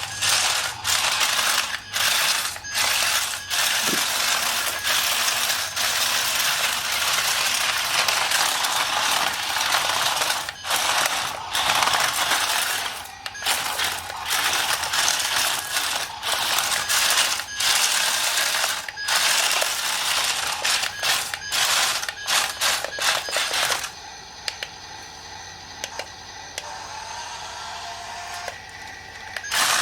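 Dense, rapid mechanical clicking and rattling of small hard parts, broken by short pauses, turning much quieter for the last few seconds.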